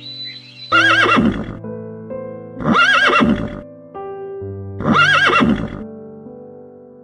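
Horse neighing three times, each whinny about a second long and about two seconds apart, over background music.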